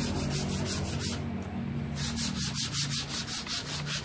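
Sandpaper rubbed by hand over the wooden frame of a cabinet door, in quick back-and-forth scratching strokes about six a second, pausing briefly about a second in before starting again.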